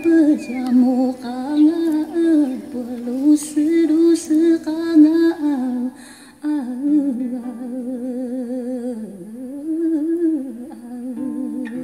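A voice humming a slow wordless melody in held, phrased notes, with a short break about six seconds in and a wavering vibrato on the long notes after it.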